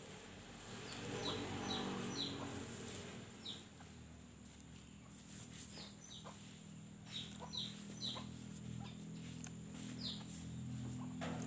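Chickens clucking, with scattered short high chirps throughout.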